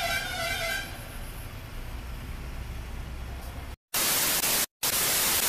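Low room noise after a held tone dies away in the first second. About four seconds in, a loud burst of TV-static hiss comes in as an edited transition, with a brief dead-silent dropout in the middle.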